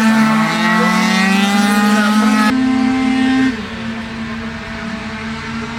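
Tuned two-stroke scooter engine revving, its pitch climbing, then about halfway through the throttle comes off and the engine drops to a quieter, steadier run.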